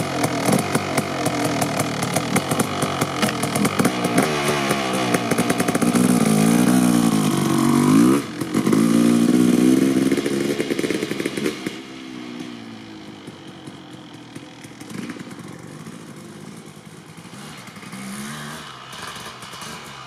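Kawasaki KX250 two-stroke motocross engine with an FMF Gnarly pipe being revved and ridden, its pitch rising and falling with the throttle and dipping briefly about eight seconds in. From about twelve seconds in it is much quieter as the bike runs further off.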